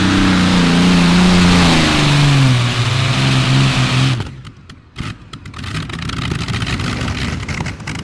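Engine of a Modified-class tractor-pulling tractor running hard, its pitch falling steadily over the first few seconds. The sound cuts off abruptly about four seconds in, and a second later comes back quieter as a rougher, crackling engine sound.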